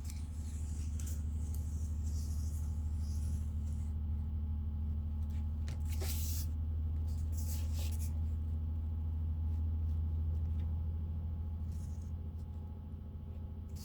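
A steady low hum, with a few brief scraping rustles about a second in and again around six and eight seconds in.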